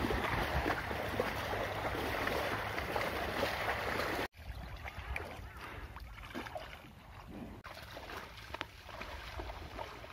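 Wind on the microphone and water sloshing around water buffalo wading through a flooded field. After a sudden cut about four seconds in, quieter water lapping with small scattered splashes around cattle standing in a pond.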